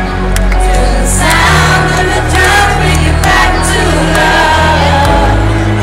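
Live trance music played loud over a concert sound system, with a woman singing over sustained bass and synth notes, and crowd noise mixed in.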